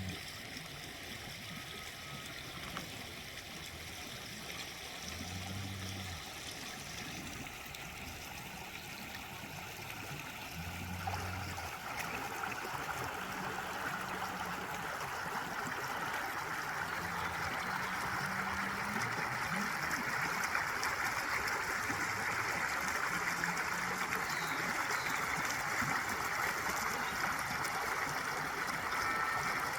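Running water of a stream: a steady rush that gets louder about twelve seconds in and fuller toward the end.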